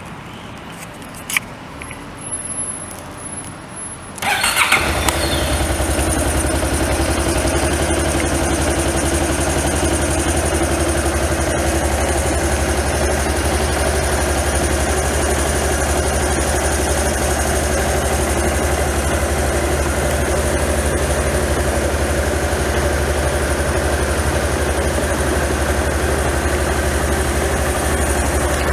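A single click about a second in, then the Honda DN-01's 680 cc V-twin is cranked and catches about four seconds in. It then idles steadily.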